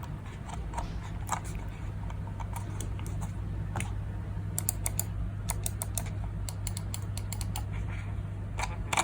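Irregular sharp clicks of a computer mouse being handled, its buttons and scroll wheel clicked, sometimes in quick runs, over a steady low electrical hum.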